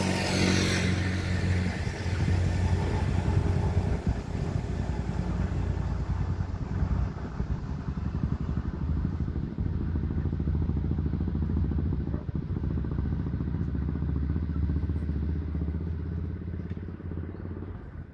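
A motor engine running at a low, steady pitch for most of the stretch, dying away near the end.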